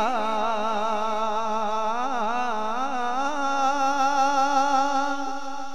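A man's solo voice sings a naat, an Urdu devotional song, through a handheld microphone. He winds ornaments up and down in pitch, then holds one long steady note from about halfway through.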